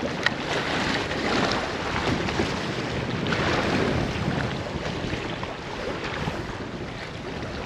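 Steady wind buffeting the microphone over the wash of waves against a seawall, with a single small click about a quarter second in.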